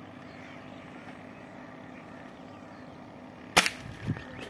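Air rifle fired once: a single sharp crack about three and a half seconds in, followed about half a second later by a duller thump.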